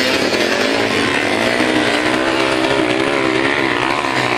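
Several motocross bike engines revving hard together as a pack of riders races up a hill, their overlapping buzzing pitch wavering up and down and climbing higher past the middle.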